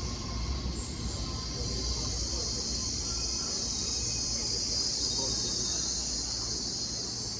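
A steady high hiss, starting after about a second and a half and fading out near the end, over a low rumble from a train at the station.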